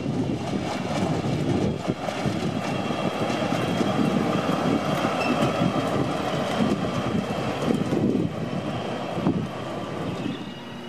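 KiwiRail DC-class diesel-electric locomotive running light engine past, its EMD two-stroke diesel engine running steadily. The sound drops away near the end.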